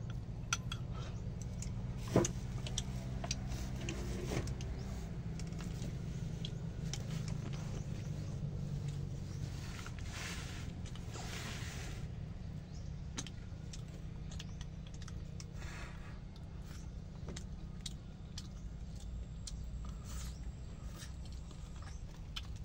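Rice being scooped from a small metal cooking pot into a bowl: scattered clicks and scrapes of the utensil against the pot and bowl, with one sharper knock about two seconds in, over a steady low hum.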